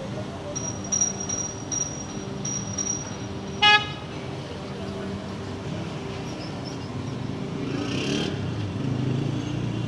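Heavy-duty manual lathe running with a steady hum, while a thin high whistle comes and goes over the first few seconds. A short, loud horn toot sounds about four seconds in.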